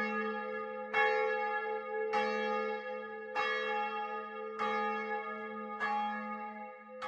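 A single church bell tolling slowly and evenly, struck about once every 1.2 seconds (five strikes), each stroke ringing on over a steady low hum.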